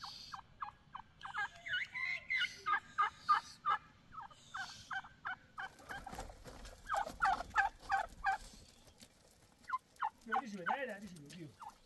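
Domestic fowl calling in several bouts of rapid, short repeated notes, with a pause a little past the middle.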